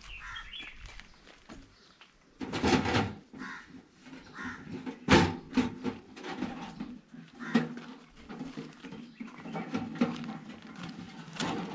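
Repeated animal calls, one every two or three seconds, over a quiet outdoor background.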